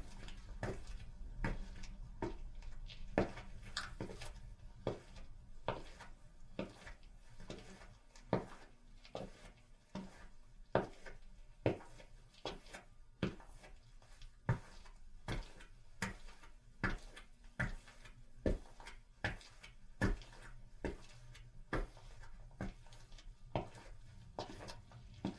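Footsteps of a person walking on concrete, an even pace of sharp hard-soled steps, a little under two a second.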